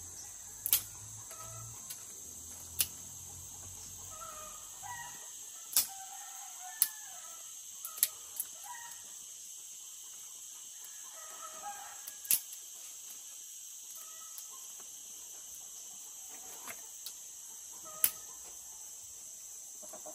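Steady high insect drone, like crickets, with short bird calls scattered through. About eight sharp clicks or snaps at irregular intervals stand out as the loudest sounds. A faint low hum runs under the first five seconds.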